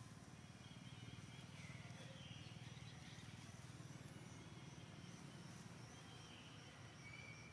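Near-silent outdoor ambience: a low steady hum with a few faint, short distant bird whistles.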